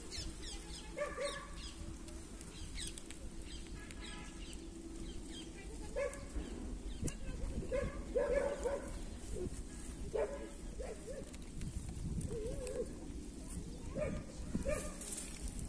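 Short pitched animal cries at irregular intervals, more of them in the second half and a few wavering, over small birds chirping.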